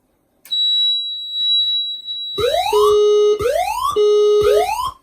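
Fire alarm sounders going off after a smoke detector activation in walk test. A steady high-pitched tone starts about half a second in. About two seconds later it gives way to a whooping pattern: a rising sweep about once a second, alternating with a steady lower tone, very loud.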